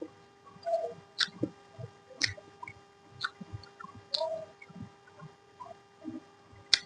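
Close-miked eating sounds: irregular wet mouth clicks and lip smacks of chewing, a few a second, with a sharper click near the end, over a faint steady hum.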